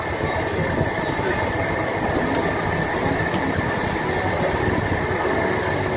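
Steady rumbling din of a barbecue restaurant, most likely the overhead grill exhaust hoods and ventilation running, with a constant hum and a faint high whine.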